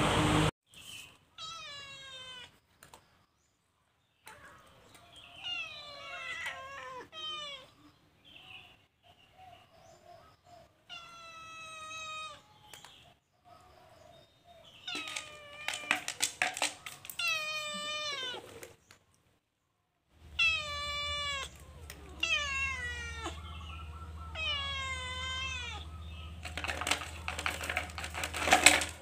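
A cat meowing over and over, a dozen or more high calls that each bend and fall in pitch, with short pauses between them. A low steady hum comes in about two-thirds of the way through, and there are clicks near the end.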